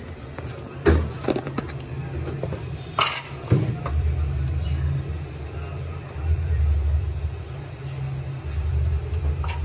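Kitchen handling sounds: a few sharp knocks and clinks of utensils and containers, about a second in and twice around three seconds in, as chaat masala is added to a pot of tamarind chutney, over a low steady rumble that swells and fades.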